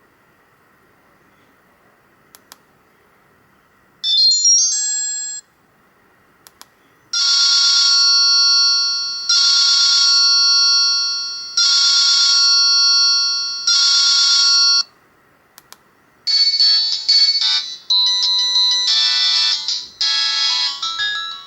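Alcatel 2000X ringtones played through an Alcatel 1054D phone's built-in speaker on its crude MIDI synthesizer. A short high melody comes about four seconds in, then a ring pattern repeats four times, each ring fading over about a second and a half. From about sixteen seconds in, a fast bleeping electronic tune plays, with faint clicks in the quiet gaps between tones.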